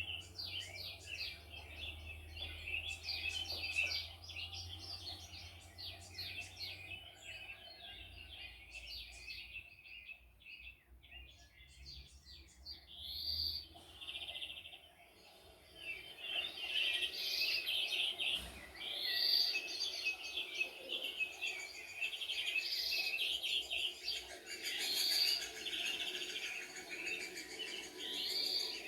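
Several songbirds chirping and singing in quick, overlapping trills. They thin out about a third of the way in, then grow busier again from just past the middle.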